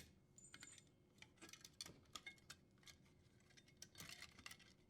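Faint, irregular clicks and light scrapes of a dishwasher's power cord being pulled through its junction box.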